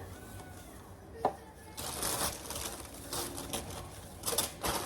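Packaging rustling and crinkling as items are unpacked by hand, with a single sharp click about a second in.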